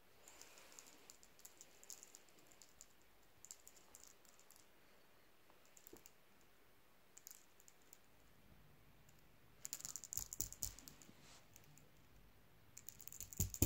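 Faint, scattered clicking and light rattling in short irregular bursts, densest about ten seconds in and again near the end, where a soft thump comes with them.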